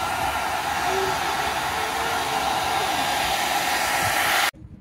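Handheld hair dryer blowing steadily, directed at long hair wound on a round brush during a blow-dry. The rush of air cuts off suddenly near the end.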